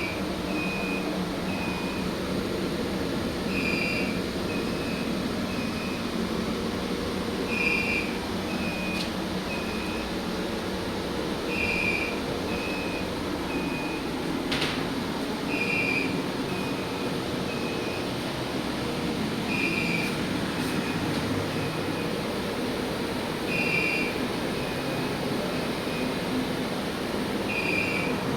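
Fire alarm system sounding an electronic beep pattern that repeats every four seconds: one longer high beep followed by three short ones. Under it runs a steady machinery hum.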